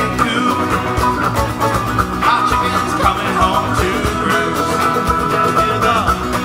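A folk band playing live: banjo, electric bass guitar, mandolin and cajon, with a steady beat.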